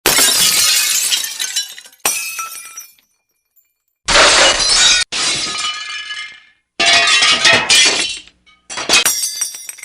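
Glass breaking: a series of about six separate smashes, one every second or two, each starting suddenly and tailing off as it rings out. The last two come in quick succession near the end.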